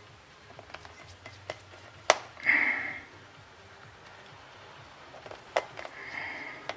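Light taps and sharp clicks of a small tool against the tablet's plastic parts and the power switch as they are fitted back in. Two short scraping sounds come after the loudest click, a little after two seconds, and again near the end.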